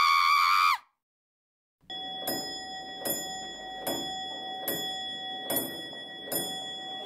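Eerie haunted-house soundtrack: a loud, wavering held cry that drops in pitch and cuts off within the first second, then after a short gap a clock-like tick with a chiming ring, about one every 0.8 seconds, over steady high ringing tones.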